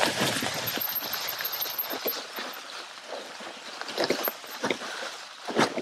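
Mountain bike riding over a thick carpet of dry fallen leaves: a continuous rustling crunch of tyres through leaves, with irregular knocks and rattles as the bike rolls over hidden stones and branches on the loose, low-grip surface.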